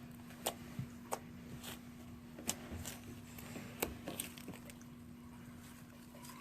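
Homemade slime being squeezed and pressed by hand, giving a string of short sharp pops and squelches at irregular intervals, mostly in the first two-thirds.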